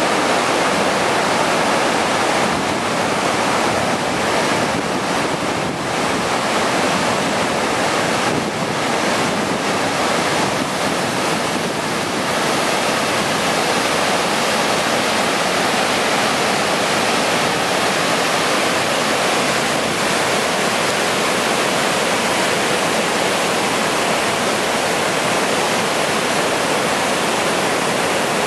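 Dynjandi waterfall cascade rushing, a loud steady wash of falling water.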